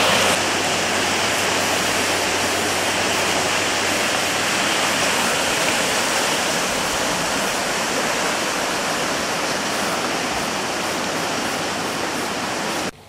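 Muddy stream water rushing and churning through a concrete channel in a loud, steady rush that cuts off suddenly near the end.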